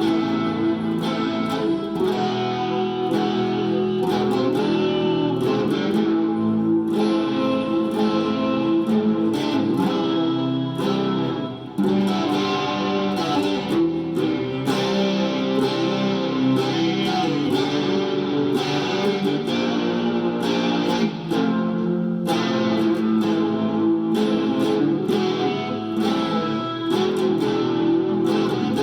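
Intro music led by a plucked guitar, with a steady rhythm of picked notes.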